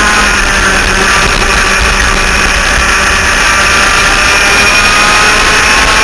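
Twin 100cc two-stroke engines of an enduro laydown kart screaming at high revs down a straight, a steady high whine that climbs slowly in pitch as the kart gathers speed. Wind rushes over the onboard microphone.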